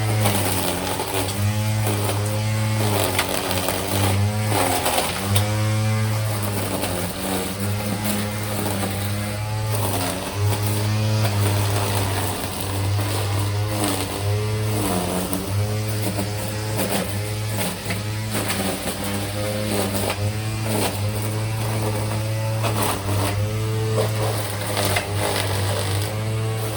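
A small motor running without a break, its pitch rising and falling over and over as it speeds up and slows down, over a steady low hum.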